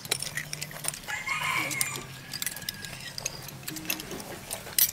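Metal spoons clicking against ceramic bowls as people eat, with a rooster crowing once about a second in.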